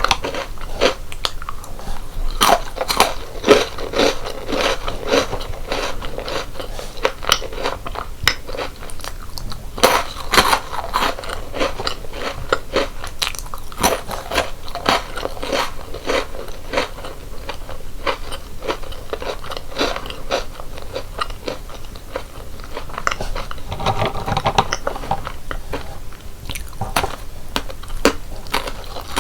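Close-miked chewing and crunching of crisp chocolate snacks and biscuits, with a sharper bite about ten seconds in.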